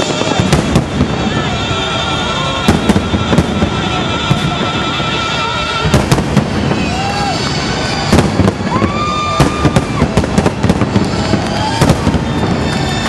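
A fireworks display with shells bursting in quick succession, giving sharp bangs and crackling. The bangs come in irregular clusters, thickest about six seconds in and again over the last few seconds.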